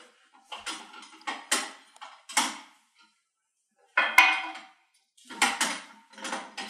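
Clanks and rattles of a compound bow and the metal bow press being handled as one bow is lifted off and another set in place. There are a few knocks in the first couple of seconds, a sharp clank about four seconds in, and a quick run of clatter near the end.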